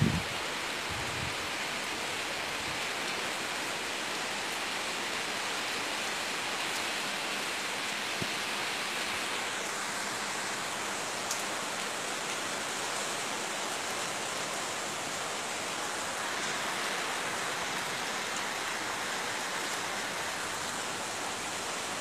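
Heavy rain pouring down onto a flooded street, an even steady hiss mixed with the rush of floodwater. A brief low thump sounds right at the start.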